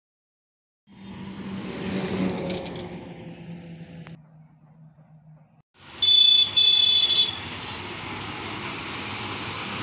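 Two short blasts of a high-pitched vehicle horn about six seconds in, the loudest sound, over steady traffic and engine noise. Before it there is an engine running, after about a second of silence at the start.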